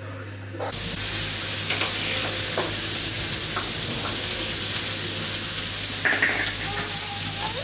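Hamburgers frying in a pan: a steady loud sizzle with a few small crackles, starting suddenly about a second in.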